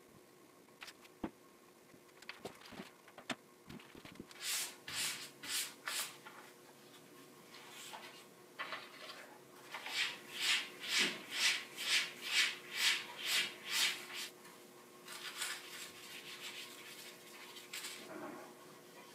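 Gloved hands rubbing over a PETG drypoint plate, working ink across it and wiping it down with newsprint. There are a few light taps at first, then a handful of rubbing strokes, then a steady run of about two strokes a second, then looser rubbing near the end.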